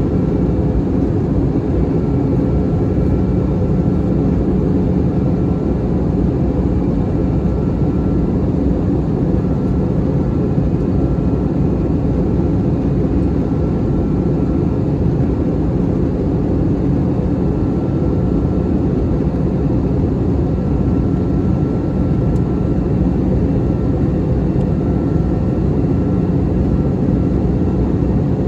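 Steady in-flight cabin noise of an Airbus A321-200 airliner: an even drone of engines and airflow with a constant low hum, unchanging throughout.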